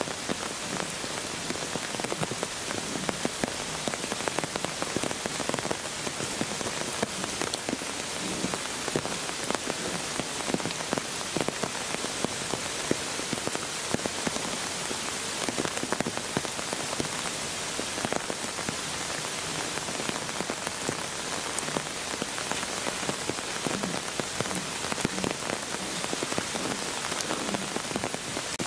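Steady rain falling: an even hiss made of many small drop hits.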